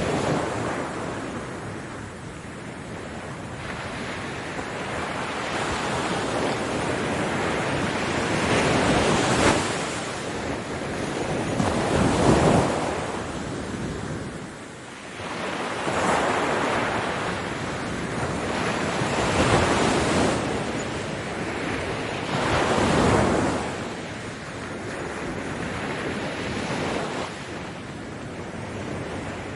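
Ocean waves breaking on a beach: a continuous wash of surf that swells and falls as each wave breaks, the loudest breakers coming every three to four seconds through the middle.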